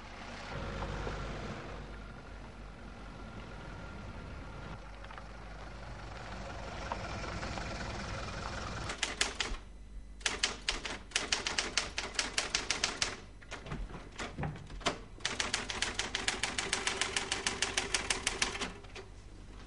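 A car driving along a road for about the first half. Then an office typewriter clatters with rapid keystrokes in runs and short pauses, stopping shortly before the end.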